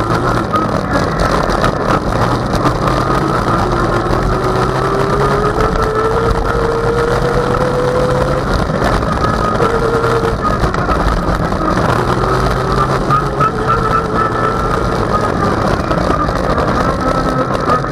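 Off-road vehicle engine running steadily while driving along a dirt road, with a rough rumble of tyres and wind underneath. Its whine climbs in pitch as it speeds up about four seconds in, and again more briefly later.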